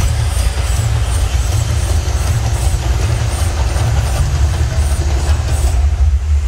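Mirage volcano show erupting: a loud, deep, steady rumble with a rushing roar as gas-fired fireballs and flame jets burst from the volcano.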